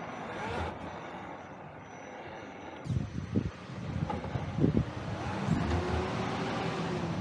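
RC4WD Gelande Defender 90 scale crawler driving over dirt and rocks, heard from a camera mounted on the truck: its electric motor and gears whine, with knocks and crunches of the tyres and chassis on the rocks growing louder from about three seconds in. Near the end the motor whine rises and then falls in pitch.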